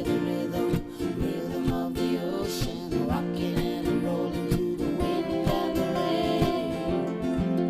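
Background music led by strummed acoustic guitar with a steady beat.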